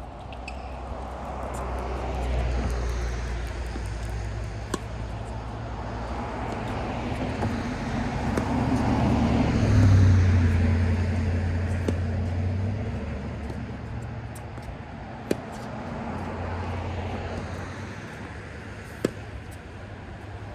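Road traffic: a low vehicle rumble swells to its loudest about halfway through and fades again, with three single sharp knocks.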